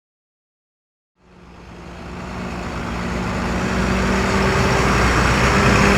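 Silence for about a second, then a truck's engine and road noise fade in and grow steadily louder as it approaches.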